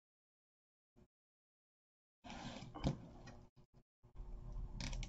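Plastic deco mesh rustling and crinkling as a ruffled piece is worked into a zip tie, with a sharp click about three seconds in. Nearly silent for the first two seconds.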